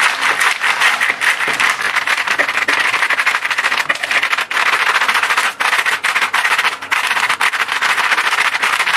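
A glass pot lid rubbed and pressed rapidly back and forth over a plastic freezer bag of frozen herbs: continuous scratchy crunching and plastic crinkling as the frozen leaves break into small pieces.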